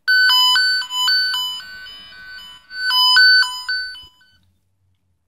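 Tone tracer probe's speaker sounding the tone generator's warbling signal, a loud electronic tone flipping between two pitches several times a second. It dips in the middle, comes back strong about three seconds in, and cuts off about four seconds in.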